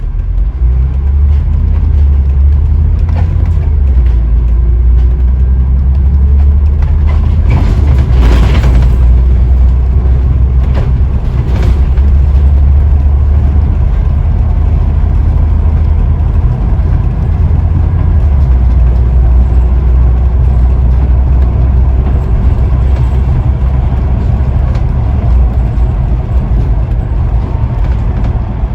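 Scania N94UD OmniDekka double-decker bus under way, heard on board: its diesel engine running loudly and steadily with road noise, the engine note stepping a few times. Brief hissing bursts about a third of the way in.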